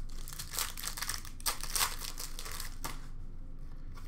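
Hockey card pack wrapper crinkling as it is torn open by hand, a run of crackling for about three seconds that dies down near the end.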